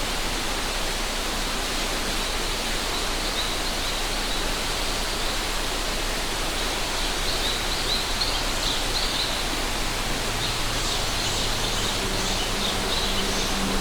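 Mountain river rushing steadily, a dense, even noise, with short high chirping calls above it from about three seconds in. A low steady hum joins near the end.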